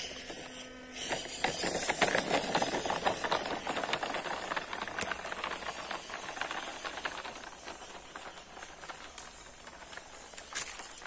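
RC model truck driving over ribbed concrete: a dense crackling rattle of its tyres and drivetrain, loudest about two to four seconds in, fading as it moves away. A steady high hiss runs underneath.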